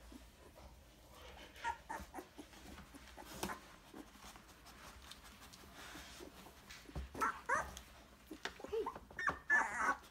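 Newborn puppies fussing: short, high squeaks and whines that bend in pitch, scattered at first and coming thick and fast in the last three seconds.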